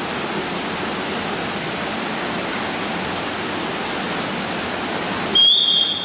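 Steady rushing, water-like hiss of an indoor competition swimming pool hall. About five seconds in, the hiss drops out and a short, loud, high beep sounds for about half a second.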